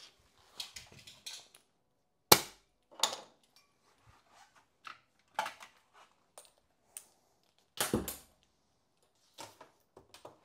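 Irregular sharp knocks and clicks from a bicycle tyre and wheel rim being handled while the tyre is fitted onto the wheel. The loudest knock comes about two seconds in, and a cluster of knocks comes near eight seconds.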